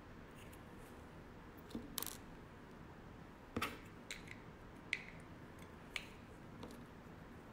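A handful of short, sharp clicks and taps, about five spread over several seconds, from small makeup tools being handled, over faint steady hiss.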